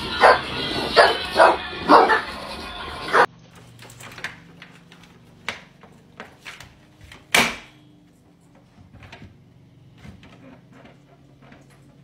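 A dog barking in short, sharp barks, about five of them in the first three seconds, then the barking stops abruptly. After that there are only faint scattered clicks and knocks, with one sharper knock about seven seconds in.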